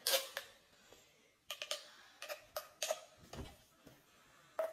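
A quick run of light clicks and taps, then a low thump about three and a half seconds in, with a short sharp sound near the end.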